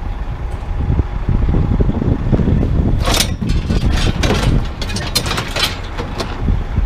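An engine runs steadily underneath while loose scrap metal is unloaded from a truck, with repeated clanks and scrapes of metal pieces from about three seconds in.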